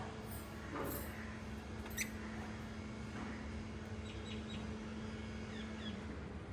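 Small pet parrots giving a few faint, short chirps over a steady low hum, with one sharp click and chirp about two seconds in and a pair of chirps near the end.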